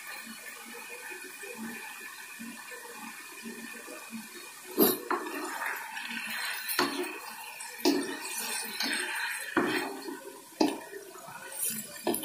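Rabbit meat and chillies sizzling in a wok; about halfway through, a wooden spatula starts stirring and tossing it, knocking against the pan about six times.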